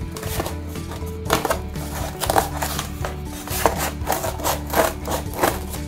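Scissors cutting through corrugated cardboard: irregular crunching snips, about one or two a second, over soft background music.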